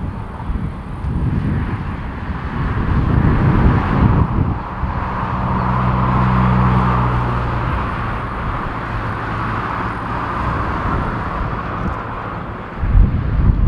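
Boeing 777-300ER jet engines running steadily at low taxi power, a continuous jet hiss and rumble. Wind buffets the microphone, with a gust near the end. A low hum with a few steady tones comes and goes about a third of the way in.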